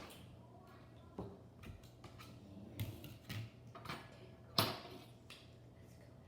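A few scattered light clicks and knocks of small objects, the loudest about four and a half seconds in, over a low steady hum.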